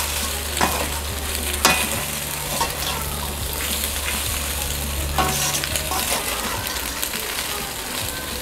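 Elbow macaroni and vegetables sizzling gently as they are stirred in a hot stainless steel pan with a metal slotted spoon, the spoon clinking sharply against the pan a few times.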